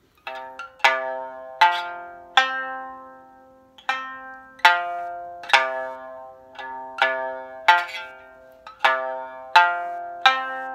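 Sanshin played with a commercially sold water buffalo horn plectrum: a slow tune of single plucked notes, each ringing and fading, to show the tone this standard horn bachi draws from the instrument.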